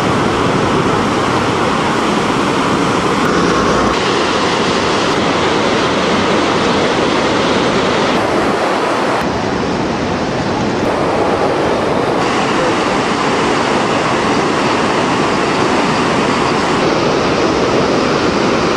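Seti River in flood: fast-flowing floodwater rushing, loud and steady.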